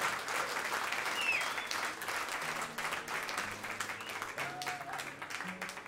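Audience applauding with a few shouts or whistles, the applause dying away toward the end.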